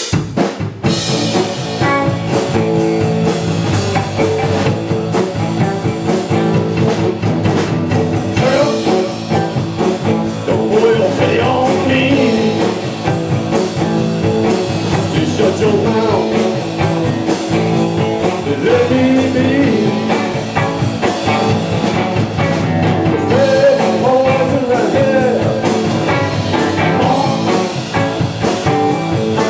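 Live blues-rock band playing an instrumental stretch of a blues song, a guitar carrying the melody over the band.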